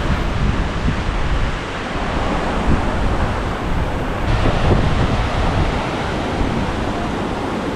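Wind buffeting the microphone, with the wash of ocean surf underneath.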